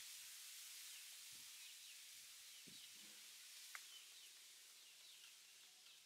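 Near silence: faint outdoor hiss with a scatter of faint, short, high bird chirps and one faint click a little under four seconds in.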